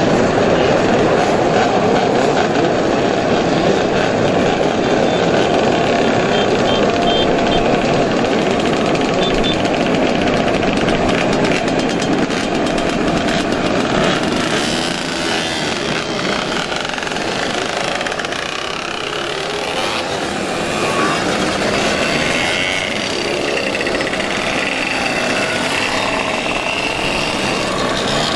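A big group of mopeds and small motorcycles running together as they pull away, a dense, loud rattle of many small engines. In the second half the mass thins a little and single engines stand out, rising and falling in pitch as they rev past close by.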